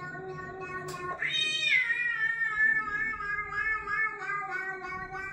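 Drawn-out cat meows played back from a video through computer speakers, with music under them. About a second in, one meow swoops up and falls back; a short click comes just before it.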